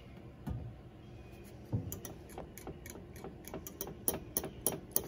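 Spoon clicking against a bowl while chocolate ganache is stirred: a couple of soft knocks, then from about two seconds in, quick ticks about three or four a second.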